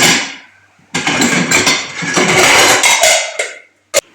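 Plates being washed by hand: bursts of splashing and clattering dishes, with a single sharp knock near the end.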